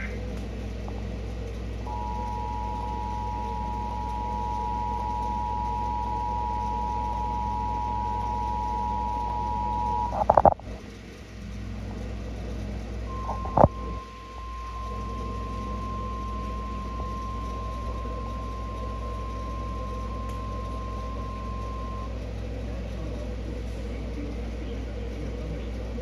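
A TV speaker plays an Emergency Alert System warning. The two-tone EAS attention signal is held steady for about eight seconds and ends in a short loud burst. A click follows, then the single-tone NOAA Weather Radio warning alarm is held for about nine seconds, over a low steady hum.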